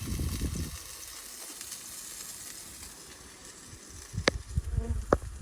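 Steak sizzling as it cooks, a steady hiss, with a few sharp clicks and knocks near the end.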